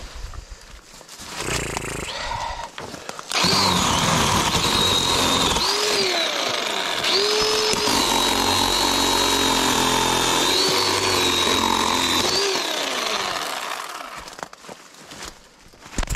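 Battery-powered cutting tool's electric motor briefly spinning up, then running at full speed with a steady high whine from about three seconds in. Its pitch dips several times as it bogs down under load while cutting brush, and it winds down near the end.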